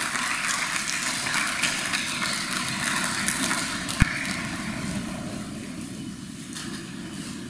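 Audience applauding, the clapping thinning out over the last couple of seconds, with one sharp crack about four seconds in.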